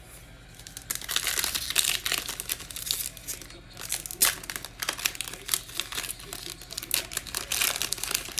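A Panini Mosaic football card pack wrapper is torn open by hand and crinkled, in dense crackling from about a second in, with a brief lull about halfway.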